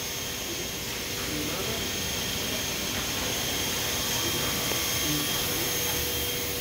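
Steady machinery hum and hiss with faint constant high whines, from a powered-up Hurco VMX-42 vertical machining center.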